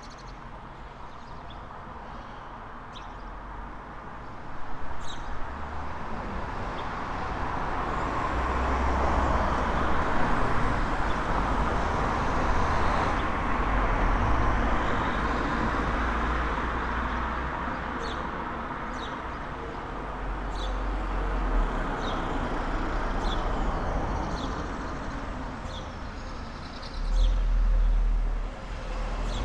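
Road traffic passing on a town street, the tyre and engine noise building and fading. A bird chirps repeatedly over it, and a low rumble swells near the end.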